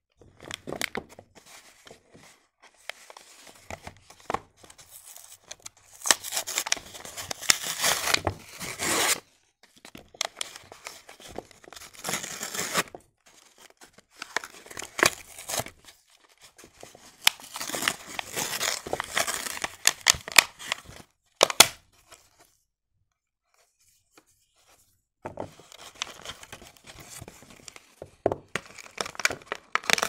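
Cardboard soap packaging and paper wrappers being torn open by hand, in bouts of ripping and crinkling. There is a pause of a few seconds about two-thirds of the way through.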